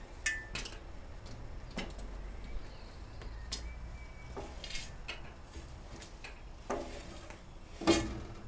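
Original Ferguson metal roll bar being swung up by hand on its pivots: scattered metallic clinks and knocks, with the loudest clank near the end as the bar comes upright.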